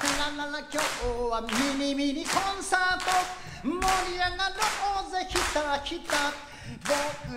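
A man singing a Japanese folk song live, with the audience clapping along in a steady rhythm.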